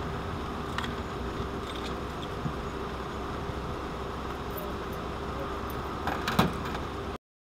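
Steady hum of an idling car. About six seconds in, keys are set down on the car's hood with a short metallic clatter. The sound then cuts off suddenly.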